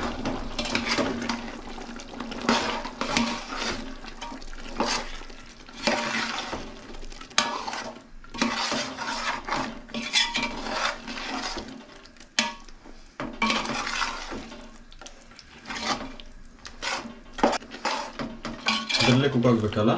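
A steel serving spoon stirring chicken pieces and green masala paste around a large metal pot. Irregular scrapes and clinks of the spoon against the pot's sides and base as the paste is mixed through the chicken.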